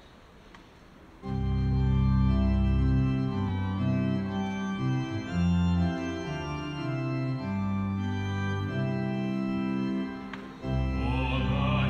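Church organ playing slow, sustained chords. It comes in about a second in and pauses briefly near the end. This is the introduction to the closing hymn.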